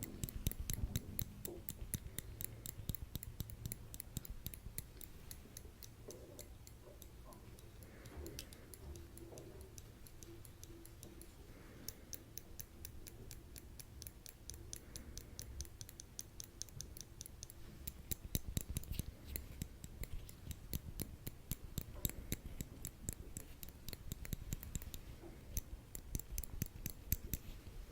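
Metal tweezers clicking rapidly, their tips snapping together as if plucking hairs. The clicking is busier and louder near the start and again in the last ten seconds, quieter through the middle.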